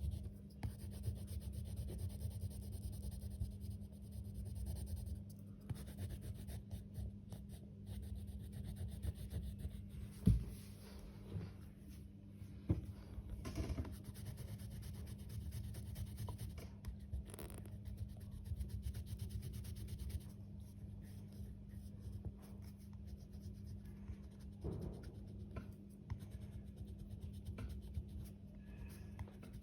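Colouring strokes rubbing and scratching on paper as an area is shaded in, over a steady low hum. A single sharp knock comes about ten seconds in.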